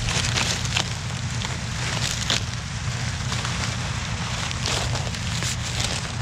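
Dry maize stalks and leaves crackling and crunching in irregular bursts as they are trampled and handled, over the steady low drone of a tractor engine running.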